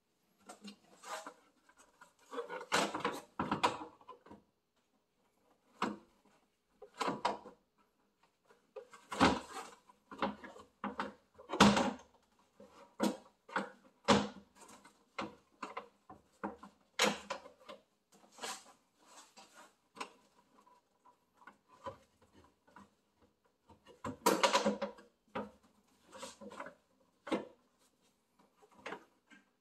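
Irregular clicks, knocks and light scraping of car parts being handled and fitted back together, as loose clip nuts are lined up with their holes so a cover can be closed. The knocks come in louder clusters near the start, about a third of the way in and near the end.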